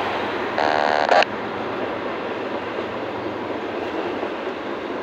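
Intermodal freight train cars rolling past below, a steady noise of wheels on rail. About half a second in, a loud pitched tone cuts in for just over half a second, then stops suddenly.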